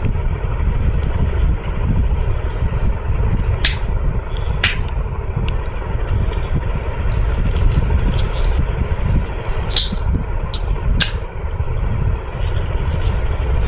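Steady low background rumble with four sharp clicks spread through it: a tool clicking against the plastic case of a 12 V 7Ah sealed lead-acid battery as its lid is pried open.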